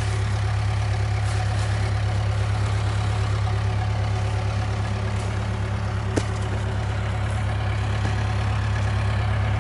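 Case 580K backhoe's diesel engine idling steadily, with a single short click about six seconds in.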